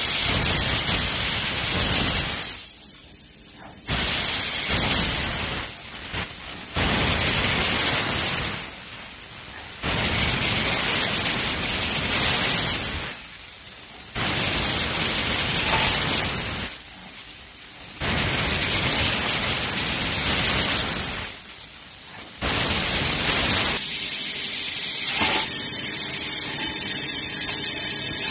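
Laser pipe cutting machine cutting steel tube: the hiss of the cutting head's assist gas and cut, in bursts of a few seconds that start and stop abruptly, about seven times, with short quieter pauses between cuts. Near the end the bursts give way to a steadier machine running sound with faint tones.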